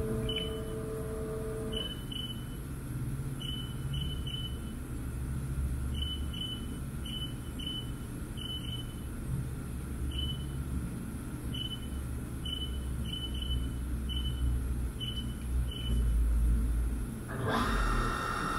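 Haas VF-4 CNC vertical mill being switched off and back on at its control panel: its steady hum cuts off about two seconds in, leaving a low rumble and a scattering of short high chirps. Near the end it powers back up and a steady whine of several tones starts.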